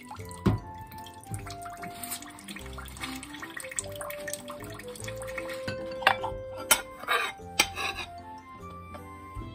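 Background music with a melody over a kitchen tap running a thin stream into a stainless steel sink as dishes are rinsed. A few sharp knocks of ceramic bowls being handled, one about half a second in and three between about six and eight seconds in.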